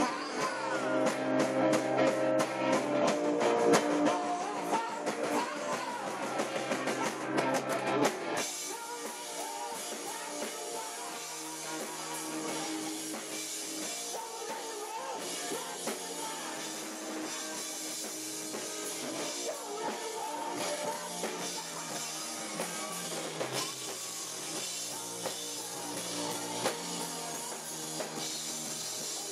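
Live rock band with electric guitar, drum kit and singing, recorded through a phone's microphone with poor, distorted sound. About eight seconds in the level drops and the playing turns denser and more even.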